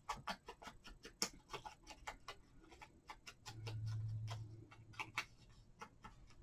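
Foam ink-blending tool tapped and dabbed against a small piece of paper, giving irregular soft ticks a few times a second. A low hum sounds for about a second near the middle.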